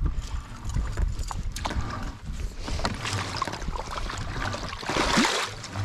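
Scattered knocks and clatter in a fishing boat on a fast-flowing river over the steady noise of moving water, with a short louder burst of splashing about five seconds in.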